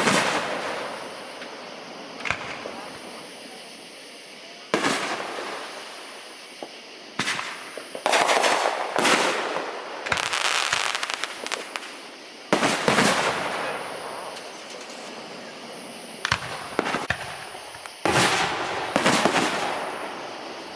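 Aerial fireworks going off one after another: sharp bangs, each trailing off in a second or two of crackling and fizzing, some coming in quick pairs, with short quieter gaps between.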